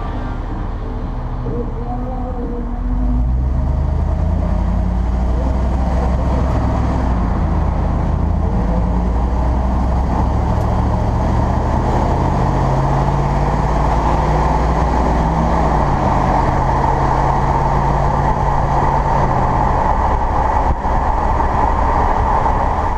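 Supercharged 5.4-litre V8 of a 2001 Ford SVT F-150 Lightning pickup driving under way, heard from the truck bed with wind and road noise over the microphone. It gets louder about three seconds in, and the engine note then shifts up and down in steps.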